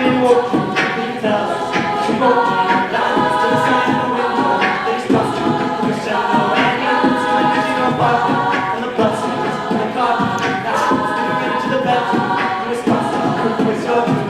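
An a cappella group singing live in close harmony, several voices together over a steady beat of sharp hits.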